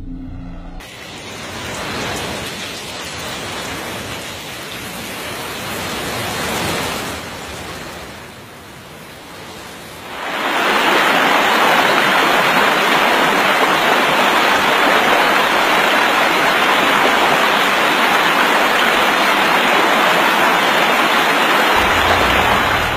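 Rushing water, a loud steady noise that grows much louder and more even about ten seconds in.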